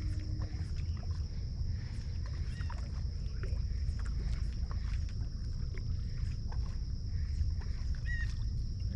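Outdoor waterside ambience: a dense low rumble with a constant high thin whine over it, scattered short clicks and a few brief chirps.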